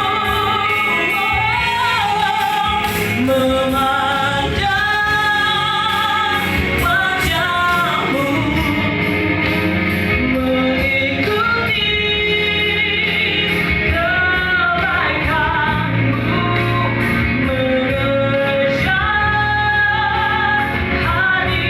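Indonesian worship song: a female lead voice singing a melody over full band accompaniment at a steady level.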